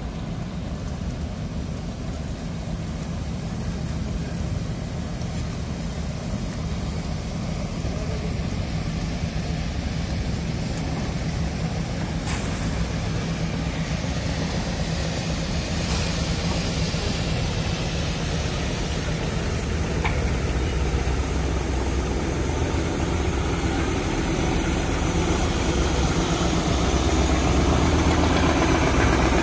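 Engines of a large multi-deck river passenger launch running steadily as it passes at speed, a low drone that grows gradually louder, with the wash of its bow wave.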